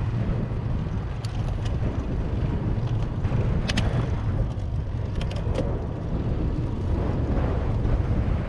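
Wind buffeting the microphone of a camera on a moving bicycle, a steady low rumble mixed with road and tyre noise from riding on asphalt, with a few short sharp clicks about a second in, near four seconds and around five seconds.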